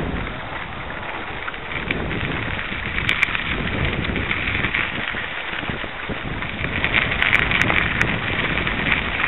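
Steady crackling rumble of travel over a dry dirt and gravel trail, with wind rushing on the microphone. It grows louder and grittier in the last few seconds, with a few sharp clicks.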